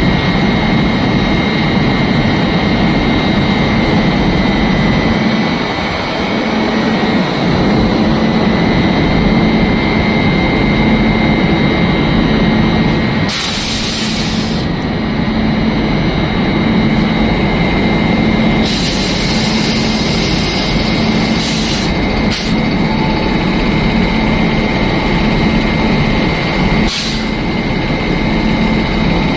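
An engine running steadily and loudly, with a constant whine over its hum; this is the unwanted noise the engine is making. A few short hissing bursts break in, one lasting over a second around the middle and others shortly after and near the end.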